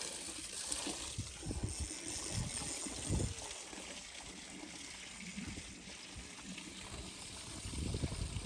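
Flowing river water trickling, with a few low knocks and bumps.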